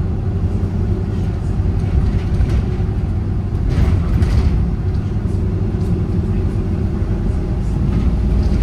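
Volvo B7RLE bus's diesel engine and drivetrain running steadily under way, heard from the rear of the cabin, with a low rumble and tyre and road noise. A brief rush of noise about four seconds in.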